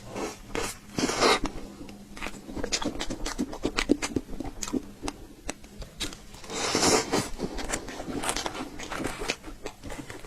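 Close-miked eating of cream and mousse cake: many quick wet mouth clicks and smacks, with two longer scraping rustles, about a second in and again around seven seconds in.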